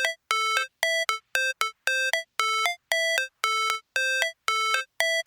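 Background music: a simple synthesizer melody of short, evenly spaced notes, about two a second, with brief silences between them.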